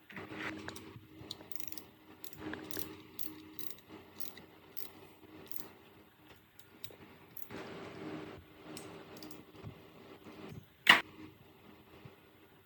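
Hand tools and metal parts being handled during work on a bench grinder: a run of light clicks and rattles with a few short scrapes, and one sharp, loud click near the end.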